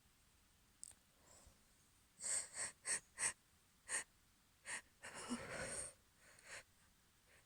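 A woman's quick breathy sniffs and gasping breaths through an allergy-irritated nose: a run of about seven short sniffs with one longer breath in partway through.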